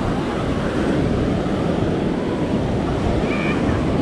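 Ocean surf washing onto the beach, mixed with wind buffeting the microphone: a steady, loud rushing noise heaviest in the low end.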